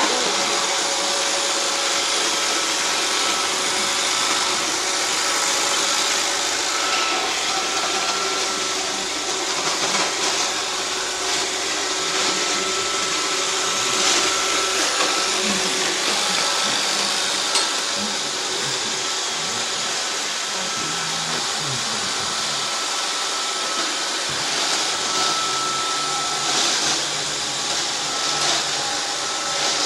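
iRobot Roomba 560 robot vacuum cleaner running steadily: an even hiss with faint steady tones over it.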